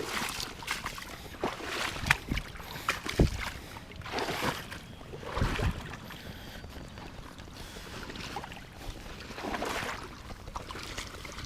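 River water sloshing and splashing, with scattered irregular knocks and scrapes.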